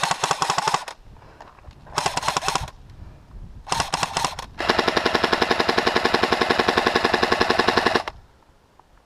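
Airsoft electric rifle firing full-auto: three short bursts, then one long, steady burst of about three and a half seconds that stops about a second before the end.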